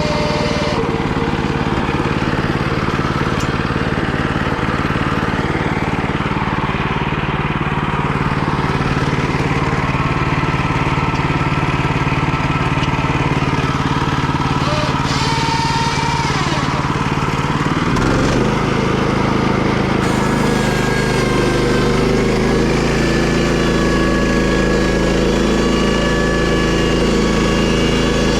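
The small gasoline engine of a homemade sawmill running steadily. Its note shifts about eighteen seconds in.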